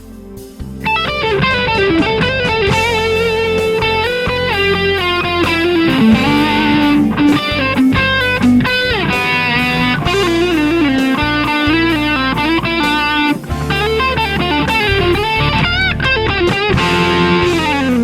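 Electric guitar playing a lead melody of sustained, bent notes, coming in about a second in and pausing briefly near the end of the second third.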